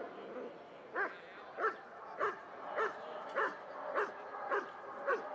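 A male German Shepherd barking steadily and rhythmically at a protection helper, about a bark every 0.6 seconds, starting about a second in: the hold-and-bark, where the dog stays on the helper and barks instead of biting.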